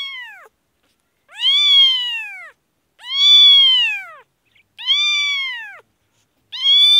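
Newborn kitten crying: about five loud meows, each about a second long and rising then falling in pitch, as it is held for eye drops.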